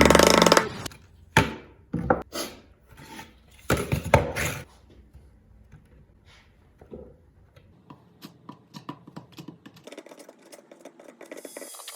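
Wooden pieces knocking together: about half a dozen sharp knocks in the first few seconds, then lighter, scattered taps and clicks.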